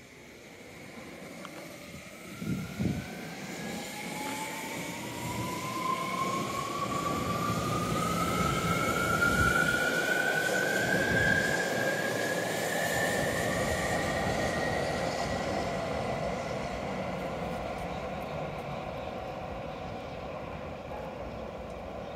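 Tokyo Metro 17000 series electric train pulling out of the station: its traction motor whine climbs steadily in pitch as it accelerates, over the running noise of the wheels on the rails. The sound grows louder, then slowly fades as the train moves away. A couple of low thumps sound about two and a half seconds in.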